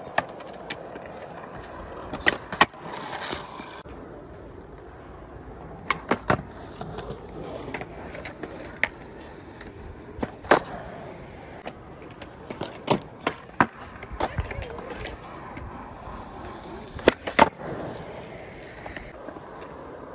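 Skateboards rolling on concrete, with sharp clacks of tails and wheels hitting the concrete manual pad and the ground, about a dozen scattered through, several in quick pairs.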